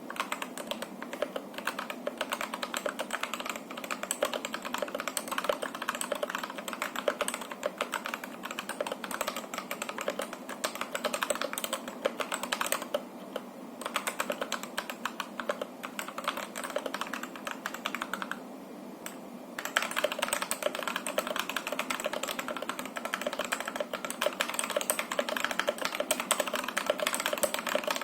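Typing on a Rexus Daxa M71 Classic mechanical keyboard with stock Boba U4T tactile switches and stock keycaps: a steady run of key strikes with short pauses about thirteen and eighteen seconds in, then faster, denser speed typing for the last eight seconds or so.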